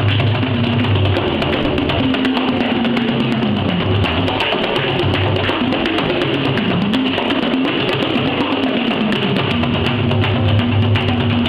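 Two bodhráns played together in a fast, dense rhythm of tipper strokes. The deep bass tone thins out from about two seconds in and comes back strongly near the end, while the drums' pitch bends up and down in between.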